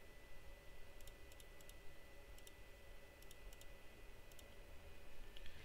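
Computer mouse clicking through POS software screens: about a dozen faint, sharp clicks, many in quick pairs, spread irregularly over a faint steady hum.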